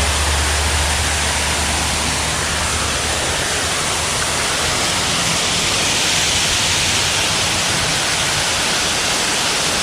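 Steady rushing water of a small creek's waterfall, an even wash of noise, with a low rumble underneath during the first few seconds.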